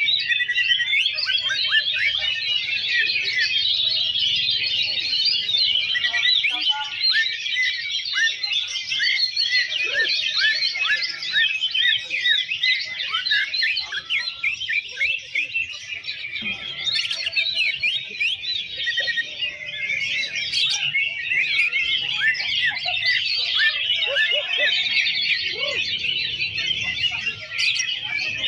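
Dense chorus of many caged greater green leafbirds (cucak ijo) singing at once: rapid, overlapping chirps and trills that never pause.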